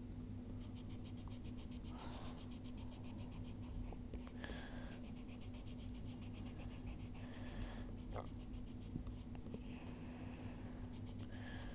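Charcoal pencil scratching on paper in quick runs of back-and-forth shading strokes, with short pauses between runs. A steady low hum runs underneath.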